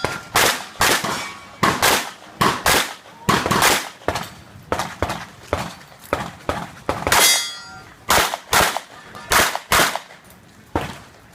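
A rapid string of about twenty gunshots, two or so a second, with steel targets clanging and ringing after many of the hits.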